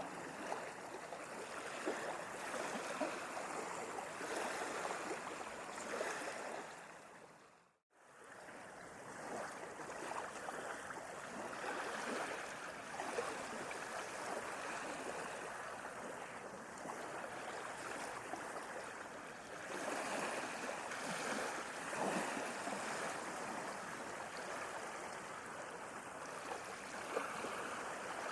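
Sea water splashing and lapping in a steady, continuous wash. About eight seconds in, it fades out to silence for a moment and fades back in, a joint in the looped recording.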